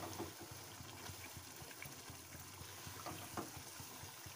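Spatula stirring thick, creamy chicken karahi gravy in a non-stick karahi: faint wet sloshing from the sauce, with a couple of soft knocks of the spatula about three seconds in.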